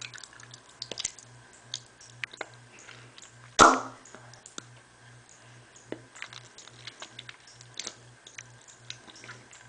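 Wet mouth noises close to the microphone: irregular lip smacks and tongue clicks, with one much louder burst about three and a half seconds in.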